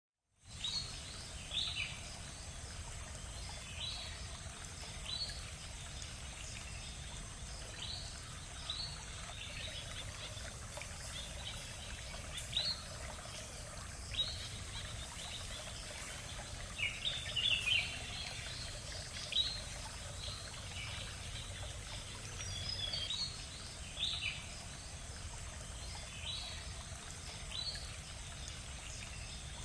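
Birds calling again and again, each call a short note that falls in pitch, one every second or two and sometimes overlapping, over a steady high-pitched drone and a low, even rush.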